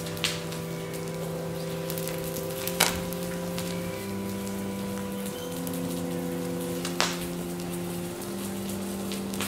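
Plastic toy fire truck burning and melting, crackling and sizzling, with two sharp pops about three seconds and seven seconds in. Slow background music of long held notes runs underneath.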